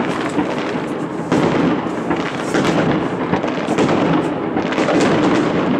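Many aerial fireworks shells bursting at once: a dense, unbroken run of overlapping bangs and crackles.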